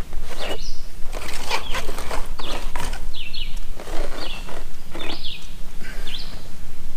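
Small birds chirping over and over in short falling notes, mixed with irregular clicks and scrapes, over a steady low hum.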